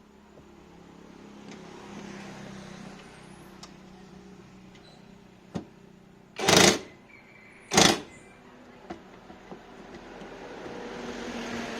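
LG front-loading washing machine running, its motor and drum giving a steady mechanical hum that swells and eases, with a click and two loud short noisy bursts about a second apart midway.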